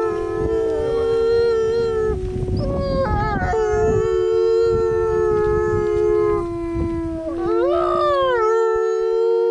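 A pack of canines howling in chorus: several long howls overlap at different pitches, one held steady and low throughout while higher voices slide down, break off and swoop back up about three-quarters of the way through.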